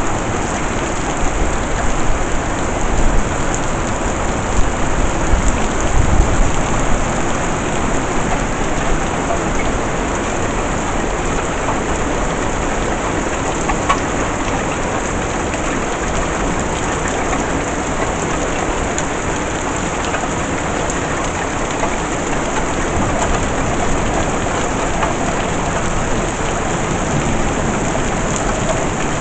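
Heavy rain pouring down steadily, with a rumble of thunder in the first several seconds.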